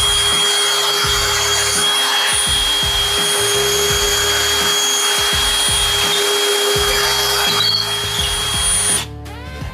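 Power drill running a pocket-hole bit into wood through a Kreg pocket-hole jig, a steady high whine that stops suddenly near the end.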